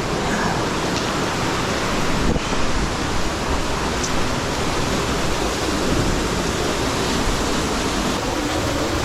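Steady loud rushing of fast-flowing floodwater in a rain-swollen creek.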